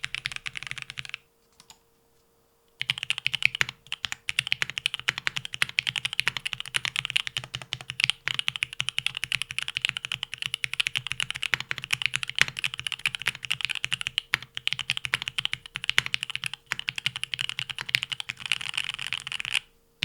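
Fast typing on a Leaf65 mechanical keyboard with lubed Marshmallow switches and Extended 2048 keycaps: a dense run of keystrokes that stops for about a second and a half near the start, then goes on without a break until just before the end.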